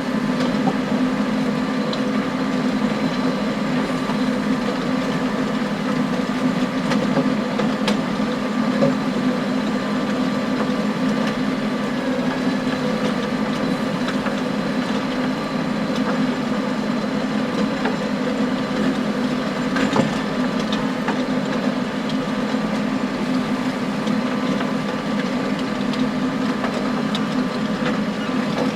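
John Deere 6920 tractor engine running steadily under load while driving a power harrow, with occasional sharp knocks as stones strike the harrow tines, the clearest about two thirds of the way through.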